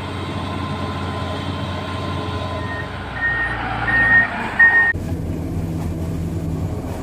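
Heavy diesel engine of a Komatsu PC210 excavator running, with a warning alarm giving four short high beeps in quick succession near the middle. About five seconds in, the sound changes abruptly to a steadier, lower engine hum.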